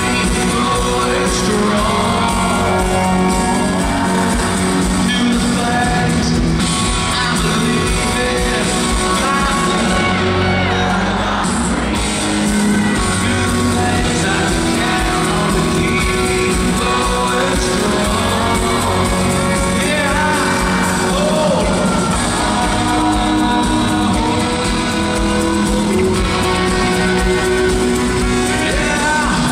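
A country band playing live, with a male lead singer singing over guitars and the rest of the band, loud and steady.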